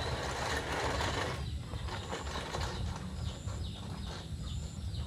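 Manual reel push mower being pushed through grass: a rush of cutting noise in the first second or so, then a run of quick, rhythmic clicking from the spinning reel and wheels.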